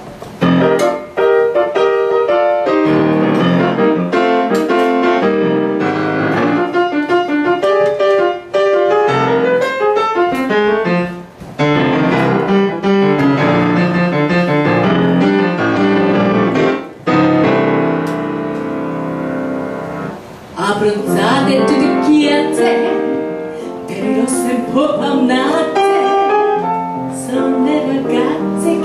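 Grand piano playing the introduction to a song, a steady stream of notes and chords.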